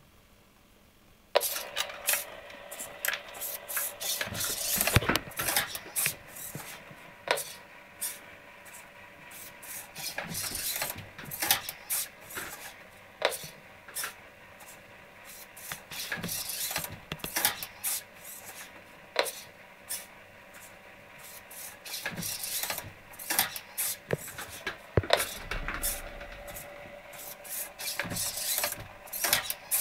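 Animatronic robot head's servo motors starting suddenly about a second in, then running in irregular spurts of whirring and grinding, with dense rattling clicks from the jointed metal frame as the head moves.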